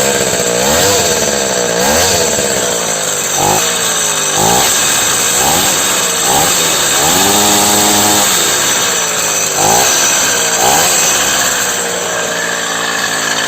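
Karpaty moped's small single-cylinder two-stroke engine running and being blipped over and over. The pitch jumps up and falls back about once a second, with one longer held rev about halfway through.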